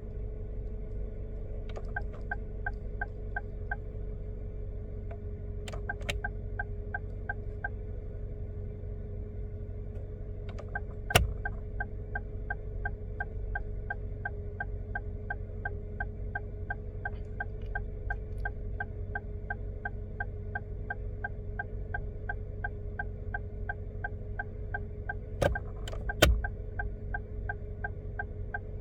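Toyota Avanza turn-signal indicator clicking steadily, about three ticks a second, heard inside the cabin over the steady hum of the air conditioning. The ticking pauses for a couple of seconds near the middle, and a few louder single clicks come as the stalk is switched between left and right signals.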